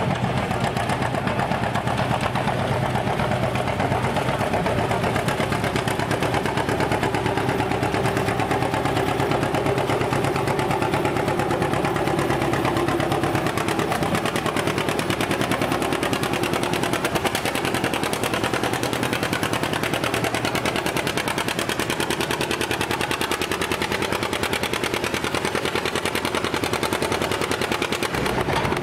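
A John Deere pulling tractor's engine running hard under full load as it drags a weight-transfer sled down the track, a fast, even stream of exhaust pulses.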